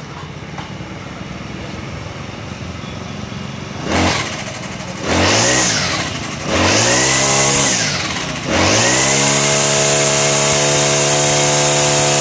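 Petrol brush cutter with a nylon trimmer-line head running: it idles, then is revved with a short blip about four seconds in and two longer revs, and from about eight and a half seconds is held at high revs.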